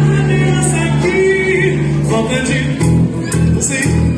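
Live band playing a song, with a singer over bass and drums.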